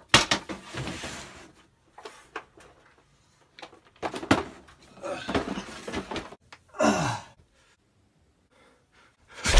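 A wooden attic trapdoor knocked open with a sharp thunk, followed by rustling and scraping and a few light knocks on the attic floorboards.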